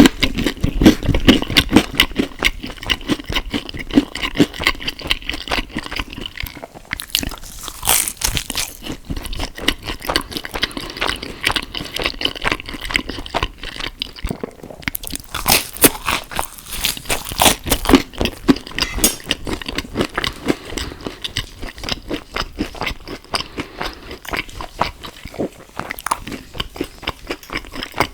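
Close-miked eating: steady, rapid wet chewing and smacking, with louder crunchy bites at a few points.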